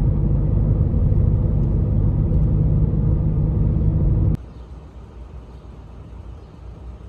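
Steady low rumble of a moving vehicle, cut off suddenly about four seconds in and replaced by a much quieter low hum.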